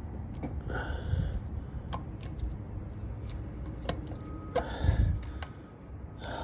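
Hand tools clicking, clinking and scraping on metal as the snap ring is worked out of a Bendix air dryer's purge valve, over a low steady rumble.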